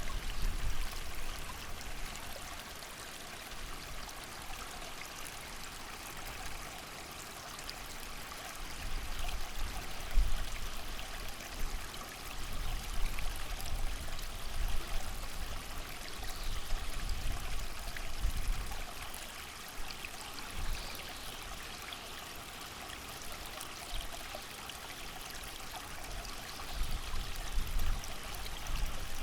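A creek running steadily under rain, an even rushing hiss. Low gusts of wind swell and fade beneath it every few seconds.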